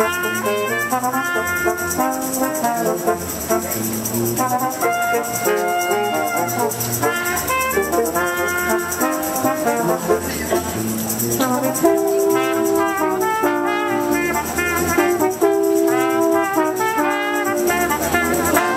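Music played on brass instruments: a melody of held and moving notes over a steady bass line.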